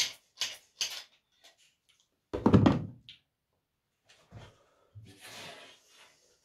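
Knocks and clatter of hand tools and fittings being handled while a tap is being installed: a few sharp clicks at the start, a heavy thump about two and a half seconds in, and a short scraping noise near the end.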